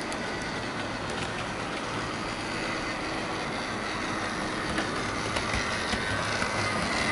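Heljan Class 17 Clayton model locomotive running along the track, its motor and wheels making a steady running noise that grows louder over the last couple of seconds as it approaches. The model is being run in after lubrication and runs smoothly.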